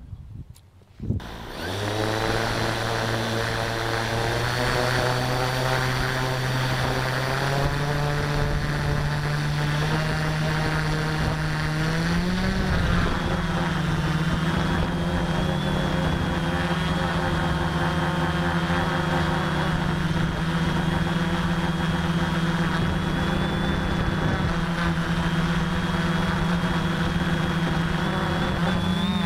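Quadcopter's electric motors and propellers start about a second in and run with a steady buzzing whine, heard from the on-board camera. The pitch steps up twice, the second time near the middle, as the throttle rises for lift-off and climb.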